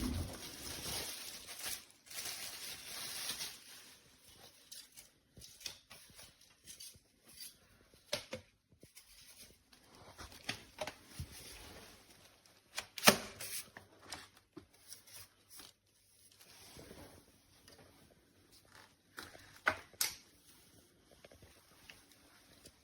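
Handling noise: rustling with scattered light clicks and knocks, and two sharper knocks about thirteen and twenty seconds in.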